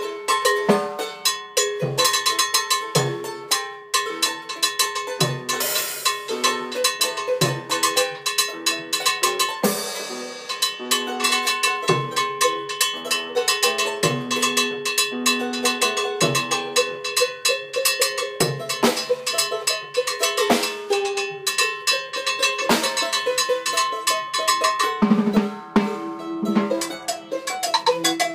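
A Latin jazz band playing, with timbales and drums keeping up a busy run of sharp strikes over held, pitched instrument notes.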